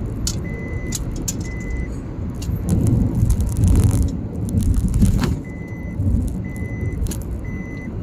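Steady road and engine rumble inside a moving car's cabin, with a dashboard warning chime beeping in two sets of three short high beeps about a second apart. Light rattling clicks come and go, and a louder rush of noise swells for a couple of seconds in the middle.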